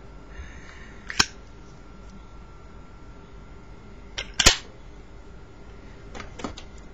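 Zippo lighter lid clicking open and shut: a single sharp click about a second in, a louder double click near the middle, and a quieter double click near the end.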